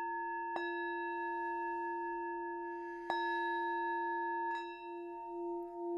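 Heart chakra Tibetan singing bowl struck with a wooden mallet three times, about half a second in, about three seconds in and again more softly near the end. It rings on continuously with a steady low tone and several higher overtones, and the low tone pulses slightly after the last strike.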